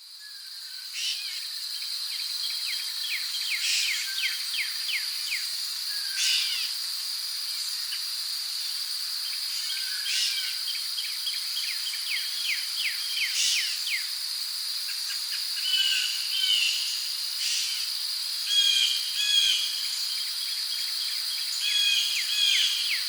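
A steady, high-pitched insect drone with birds chirping over it in quick runs of short, downward-sweeping notes. It fades in at the start.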